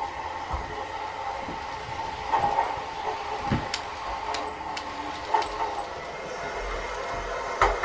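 N gauge KiHa 30 model diesel railcar running on the track: a steady motor whine with irregular sharp clicks and knocks from the wheels on the rails.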